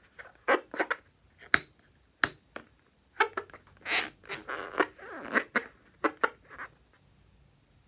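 Slime being worked by hand: an irregular run of short sticky clicks and crackles, with a longer squelchy stretch about four to five and a half seconds in.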